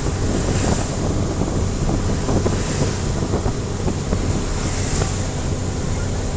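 Boat running through rough, high seas: a steady low engine drone under heavy wind buffeting the microphone, with water splashing and knocking against the hull throughout.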